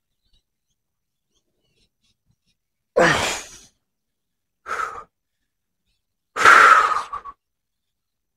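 A man exhales hard three times in heavy sighs of effort while holding a strenuous kneeling knee exercise. The first and last sighs are the longest and loudest, and a short one falls between them.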